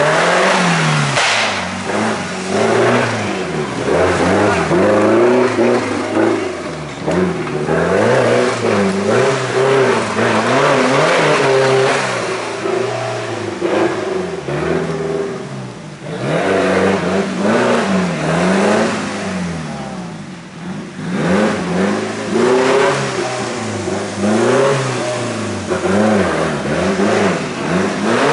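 Open-class off-road 4x4 competition car's engine revving up and down over and over, the pitch rising and falling every second or two as the driver works the throttle on a rough dirt trail.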